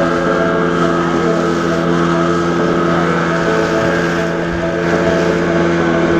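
Small outboard motor towing a banana boat, running at a steady speed, under a constant rush of water spray and wind.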